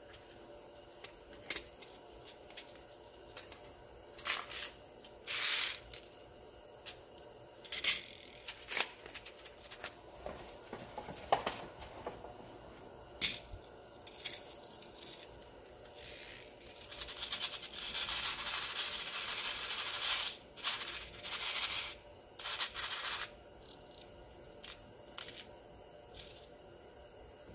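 Sharp clicks and short handling noises of small reloading gear, then several seconds of loose Federal large rifle primers rattling in a plastic primer flip tray as it is shaken to turn them cup side up.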